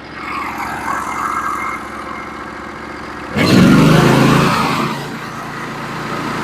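Band sawmill's engine running steadily, then throttled up sharply about three and a half seconds in, getting much louder before easing off slightly, as the mill spins up to take another slab off the white oak log.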